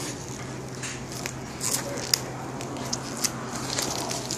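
Gold chrome vinyl wrap being peeled by hand off a Hummer H2's painted door pillar, crackling and crinkling with many small sharp ticks as the film lifts from the paint.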